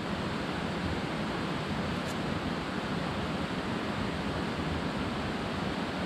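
Steady rushing of a large mountain river's flowing water.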